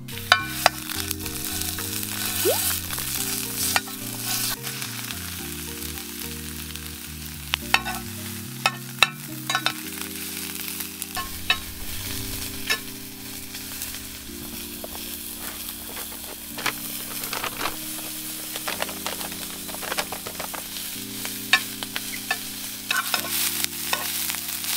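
Rice, mushrooms and sausage sizzling as they fry in a square metal pan on a portable camp stove, with a spoon stirring through them and sharp clinks and scrapes against the pan now and then.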